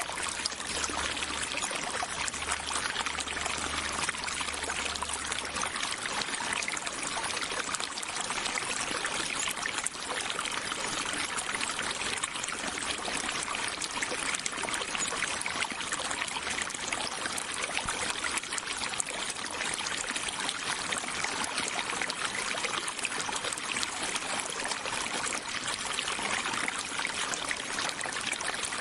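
A stream of water flowing and trickling: a steady, unbroken rush with no pauses or changes.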